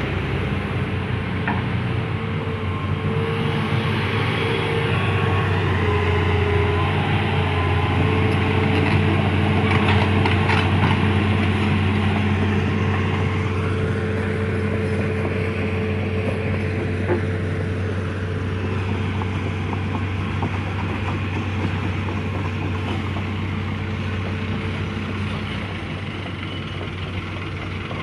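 A heavy vehicle engine running steadily at a constant speed, with some metallic clanks and rattles around the middle.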